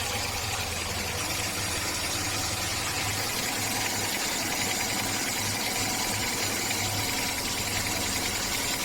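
2003 GMC engine running steadily, making the weird noise that is being shown as a symptom.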